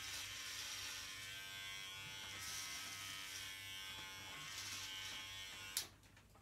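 Electric hair clippers buzzing steadily as they cut through hair, then cut off with a click near the end.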